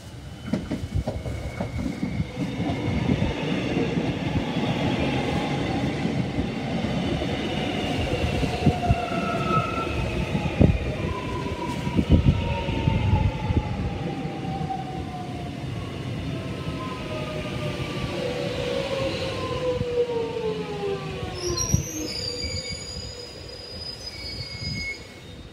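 Melbourne X'Trapolis electric suburban train running through the station past the platform. Its wheels clatter and knock over the rails, and whines fall slowly in pitch as it goes by. High wheel squeals come in near the end.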